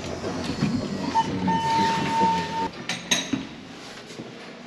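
Old apartment-building elevator running in its shaft, rattling, with a high steady squeal for about a second and a half and a few sharp clanks about three seconds in.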